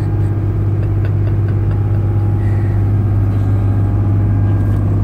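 Steady low drone of a 42-foot Nordic Tug's inboard diesel engine running under way, heard inside the cabin.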